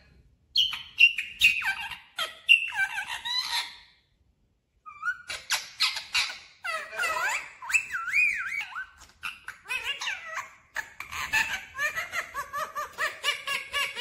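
Rose-ringed parakeets chattering in quick, high-pitched squeaky calls that bend up and down in pitch. They break off for about a second around four seconds in, then call almost continuously.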